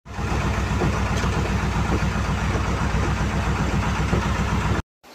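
An engine running steadily, with a deep even hum.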